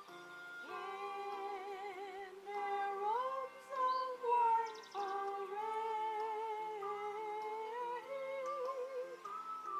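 Slow, wordless music: a melody of long held notes with vibrato, changing pitch every second or two over sustained lower notes.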